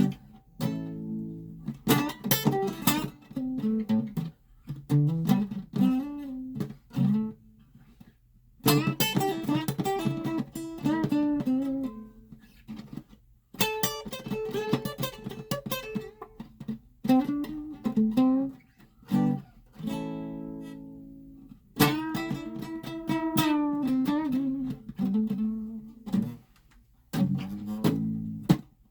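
Guitar playing an instrumental intro: picked and strummed chords in short phrases, each broken off by a brief pause.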